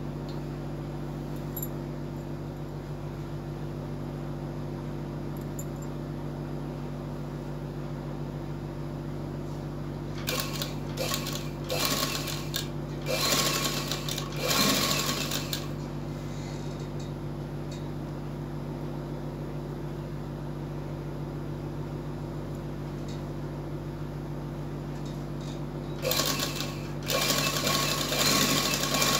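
Sewing machine stitching through fabric in short stop-start runs: several bursts from about ten seconds in, then another run starting near the end. A steady low hum sits underneath throughout.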